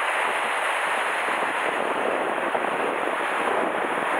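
Sea surf washing and breaking against the rocks just below, a steady rushing noise.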